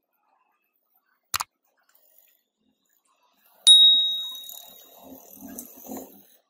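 Handmade wooden toy gun's mechanism worked by hand: a click about a second in, then a sharp snap with a high metallic ring that dies away over a second or so, followed by the rattle of wooden parts being handled.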